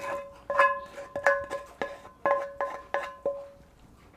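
Background music: a plucked string instrument plays a quick run of notes on much the same pitch. The notes stop about a second before the end.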